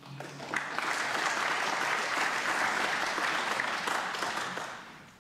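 Snooker audience applauding a shot. The clapping swells about half a second in, holds steady, then dies away near the end.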